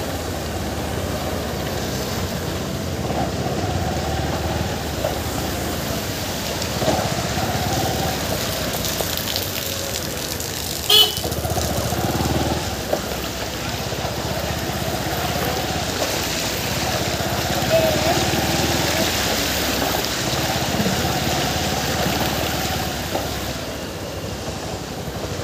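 Steady engine and traffic noise from motorbikes and cars on a rain-flooded street, with a single sharp click about eleven seconds in.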